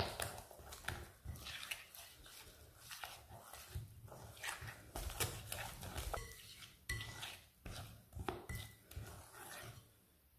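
Wire whisk beating a thick flour-and-water fritter batter in a glass bowl: quick, irregular clinks and taps of the wires against the glass as the batter is worked smooth, stopping shortly before the end.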